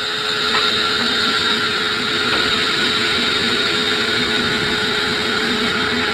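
Sawmill saw running steadily while sawing acacia wood: a constant whine over dense mechanical noise.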